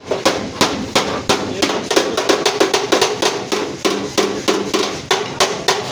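Rapid hammer blows on sheet metal, about five a second, with a metallic ring under them: panel beating to straighten crash damage on a Suzuki Ravi pickup's body.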